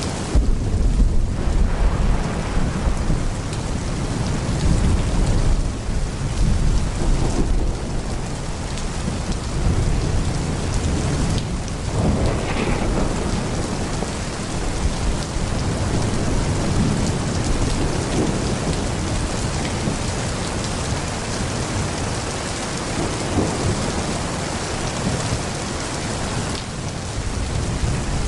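Heavy pouring rain with thunder rumbling low and continuously, swelling and easing in waves.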